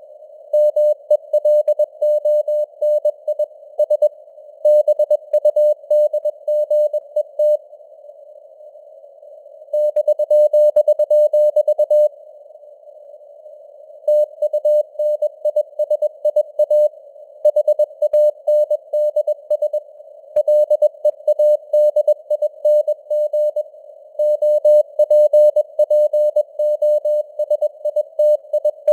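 Morse code (CW) at 21 words per minute: a single mid-pitched tone keyed on and off in rapid dots and dashes over a narrow band of simulated radio hiss, with the signal strength fading up and down. The keying stops for about two seconds twice, a third of the way in and again just before the middle.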